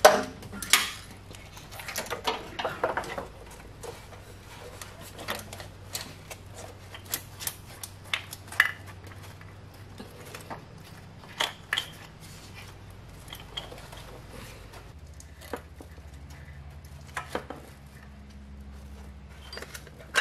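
Ignition wiring harness wires and connectors being worked behind an engine's intake manifold, giving scattered irregular clicks and clinks of plastic and metal as they are pushed and fed through. A low steady hum runs underneath.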